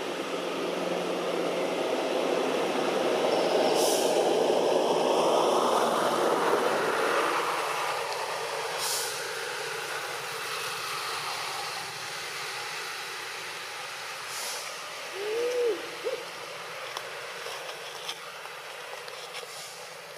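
Engine noise of a passing vehicle swells over a few seconds and fades away. About fifteen seconds in, a single short hooting call rises and falls in pitch.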